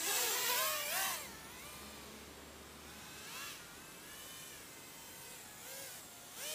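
Micro FPV quadcopter's brushless motors, DYS 1104 4000kv spinning Gemfan 3025 props, whining, the pitch gliding up and down with the throttle. The whine is loudest in the first second, along with a rush of air, then fainter, and it swells again briefly in the middle and at the end.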